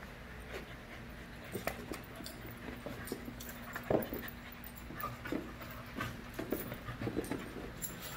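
Five-month-old puppies wrestling in play: panting and scuffling, with short sharp sounds scattered irregularly through, the loudest about four seconds in.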